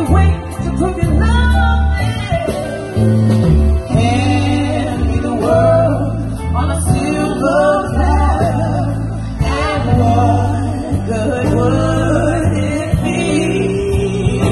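Live pop/R&B song: women singing into microphones, backed by electric keyboard and electric guitar, amplified through small PA speakers.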